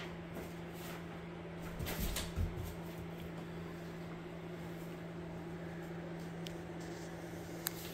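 Brown paper bags rustling and bumping as cats paw and push into them, with a short burst of crinkling and a thud about two seconds in and a sharp click near the end, over a steady low hum.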